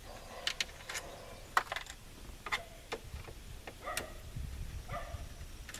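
Scattered light clicks and taps, a few with a brief ringing tone, from hand work on the truck's dashboard screws and plastic trim pieces.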